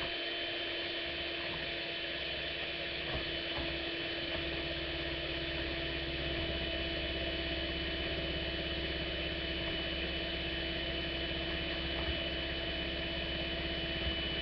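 Electric hand mixer running steadily, its beaters whirring in a plastic bowl of shea butter, coconut oil and cocoa butter, with a few faint knocks. The mixer is working against solid chunks of unmelted cocoa butter that will not break up.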